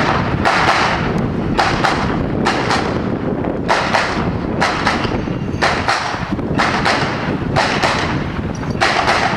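Blank gunfire from soldiers' rifles: more than a dozen irregular shots, some in quick pairs, over wind rumbling on the microphone.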